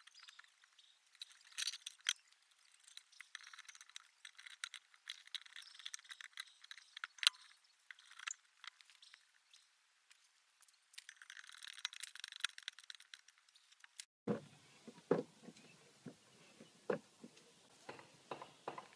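Steel parts of a ripper-fork digging tool clinking and rattling against each other and the wooden bench as it is handled and assembled. About 14 s in, this cuts to dull knocks and crunches as the fork is pushed into loose soil by foot and levered through its comb frame.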